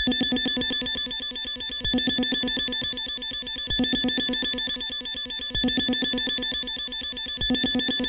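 An electronic alarm-like sound: a steady high tone pulsing rapidly, over a deeper pulse that swells about every two seconds.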